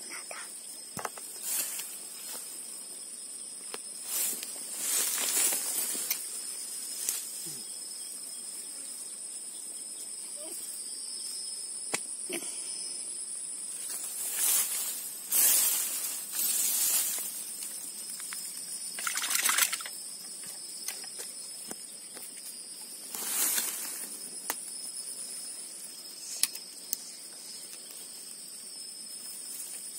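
Grass and weeds rustling in short bursts several times as someone moves and reaches through them, over a steady high-pitched insect chirring.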